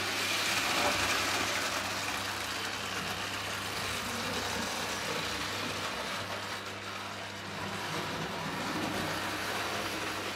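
O gauge model train layout in operation: a Lionel train running on three-rail tubular track, a steady rolling mechanical noise over a constant low hum.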